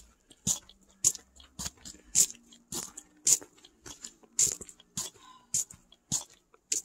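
Footsteps crunching in snow at a steady walking pace, nearly two steps a second.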